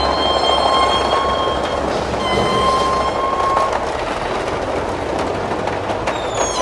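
Electric rolling shutter running: the metal slats rattle steadily as they roll, with a motor whine over the top that shifts in pitch a few times.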